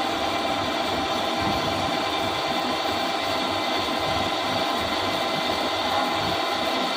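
CNC turning machine (lathe) running steadily, a constant mechanical noise with a few steady whining tones and no pauses or impacts.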